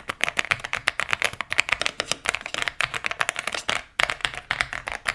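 MCHOSE UT98 mechanical keyboard being typed on fast: a quick, even run of key clicks, several keystrokes a second, with a short pause a little before four seconds in.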